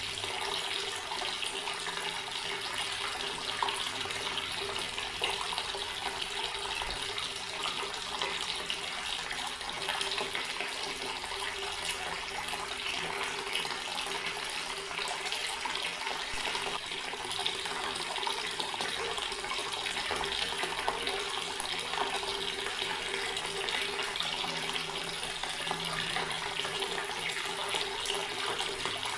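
Water running steadily from a tap and splashing, an even rush with no breaks.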